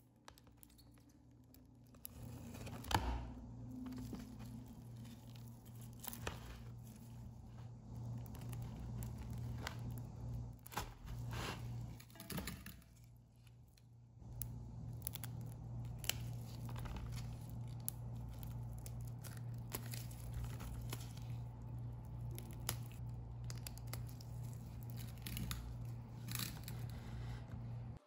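Hard gel candle wax being torn apart by latex-gloved hands: irregular squishy tearing and crinkling, with pieces clicking against a plastic container, over a steady low hum.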